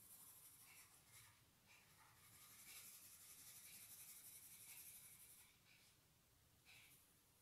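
Faint scratching of a crayon stroking across drawing paper: a few short strokes, a steadier stretch of scratching in the middle, then one more short stroke near the end.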